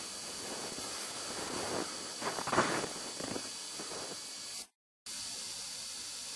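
Irregular rustling and crunching close to the microphone, as of movement through snow, over a steady hiss. It is loudest a couple of seconds in and fades out by about four seconds. The sound cuts out completely for a moment near the end, then the hiss carries on.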